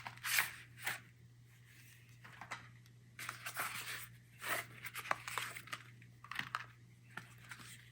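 Soft, intermittent rustling and scraping as hands handle DDR5 RAM modules and their plastic packaging, over a low steady hum.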